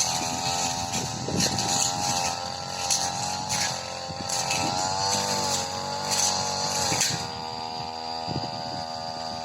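Supra SPR328 brush cutter's small two-stroke engine running at high speed, its note wavering up and down as it takes load cutting tall, dense grass, with the rustle and swish of the blade through the stems.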